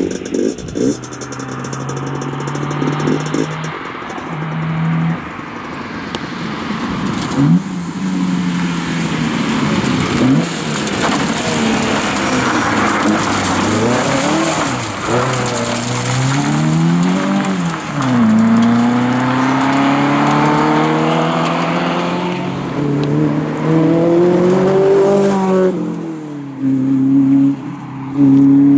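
Volkswagen Golf Mk1 rally car's engine revving hard as it approaches and passes, the pitch climbing and dropping again and again with the gear changes. Near the end a second car, a Lotus Elise, arrives with a steadier engine note.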